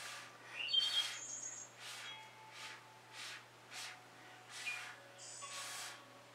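Birds chirping, with short whistled notes and a quick rising chirp about a second in, over a series of short airy hisses that come every half second to a second.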